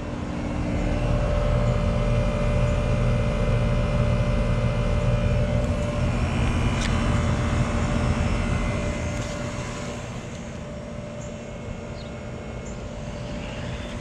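2003 Amana Prestige II outdoor air-conditioner condensing unit running: a steady low hum from the compressor and condenser fan, with a few steady tones above it. It grows somewhat quieter about nine seconds in.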